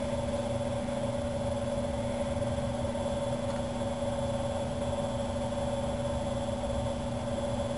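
Steady machine hum with a couple of constant tones; nothing else happens.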